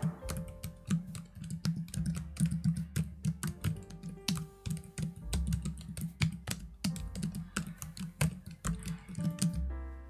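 Typing on a Microsoft Designer Compact Keyboard, a thin low-profile keyboard: a fast, irregular run of fairly quiet key clicks. Background music plays under it.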